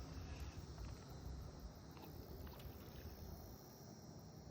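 Faint outdoor ambience: wind rumbling on the microphone, under a steady high insect drone, with a few faint clicks.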